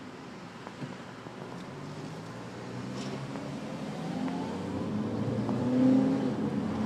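Road noise inside a moving car, with an engine revving up: its pitch rises over the last few seconds and it is loudest near the end.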